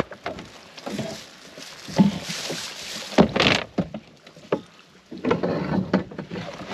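Knocks and thumps on a canoe's hull as a man climbs out of it onto a grassy riverbank, the loudest about three seconds in, with rustling in between.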